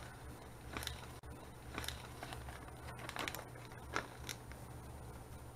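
Paper instruction sheet rustling and crackling as it is handled and unfolded, in a few short bursts, the sharpest about four seconds in, over a low steady hum.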